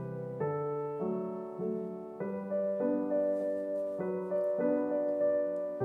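Soft background music: held chords that change about every half second.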